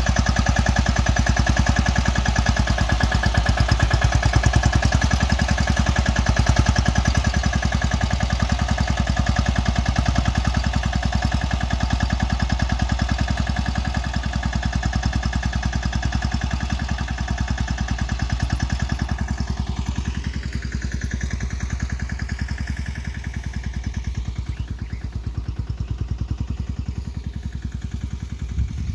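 Small tractor's engine running steadily as it pulls a tine weeder-cultivator between crop rows, growing fainter in the last third as it moves away.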